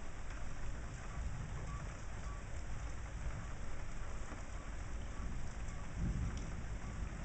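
Steady rain falling in a thunderstorm, with a low rumble of thunder swelling about six seconds in.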